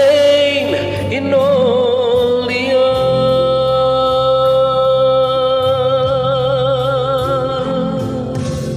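A voice singing the close of a gospel worship song over a sustained instrumental accompaniment. The voice holds one long final note with a light vibrato from about three seconds in until near the end.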